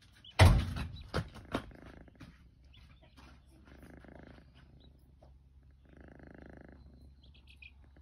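Kitten purring softly in slow in-and-out cycles, about two seconds apart. A sharp knock about half a second in and a few smaller clicks after it are the loudest sounds, and a short run of faint high chirps comes near the end.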